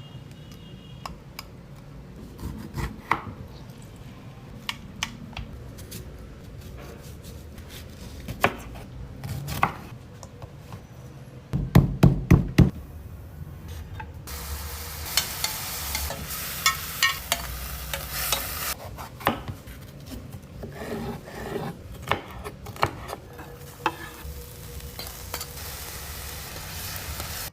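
Cooking prep sounds: utensils clicking and knocking against cookware, with a quick run of about five loud knocks midway. A few seconds of steady hissing follows and fades somewhat toward the end.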